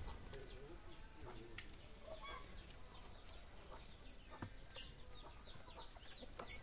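Faint clucking of farm fowl, with a few sharp taps in the second half as a peacock pecks at grain and fruit in a wooden feeding tray.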